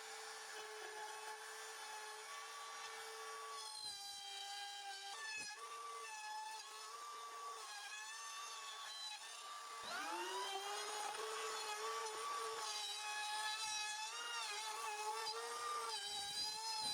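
Electric power tool motor running with a steady high whine, its pitch wavering under load. It dips briefly twice early on and spins back up from a lower pitch about ten seconds in, running louder after that.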